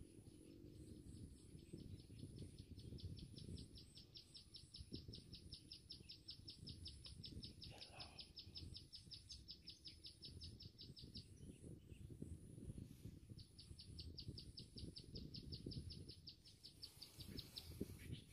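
A faint, high-pitched chirping trill of quick, evenly spaced pulses, about six or seven a second, that runs for about ten seconds, stops, then starts again for about four seconds, over a low rumble.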